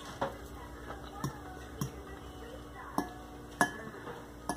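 Close-up eating sounds: a person chewing spicy noodles, with about six short, sharp clicks and smacks, among them a metal fork against a glass bowl.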